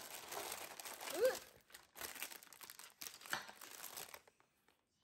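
Baking parchment crinkling and rustling as it is handled and peeled off a turned-out cake, with a short vocal exclamation about a second in. The crinkling stops a little after four seconds.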